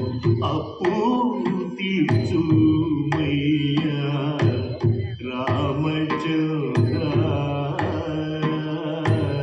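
Carnatic-style devotional singing: a voice holds and bends long notes over a steady pattern of hand-drum strokes.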